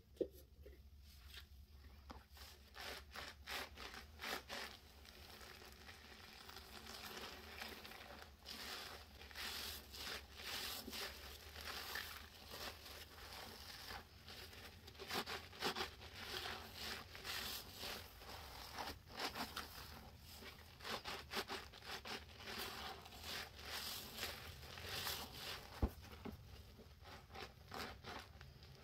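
Soap-soaked sponges squeezed and kneaded by gloved hands, making a running series of irregular wet squelches and crackling foam. Two sharp clicks stand out, one just after the start and one near the end.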